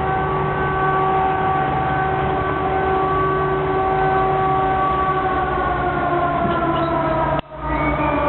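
French national alert network (RNA) civil-defence siren sounding one steady tone whose pitch starts to fall about halfway through. The sound drops out for a split second near the end.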